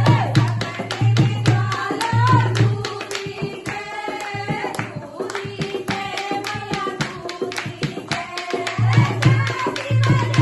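Dholak playing a fast, even beat in a Hindu devotional bhajan, with a held melody line and some singing over it.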